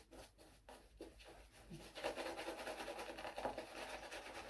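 Straight razor scraping through lathered stubble: faint short strokes, about three a second, then from about two seconds in a denser, continuous scratching.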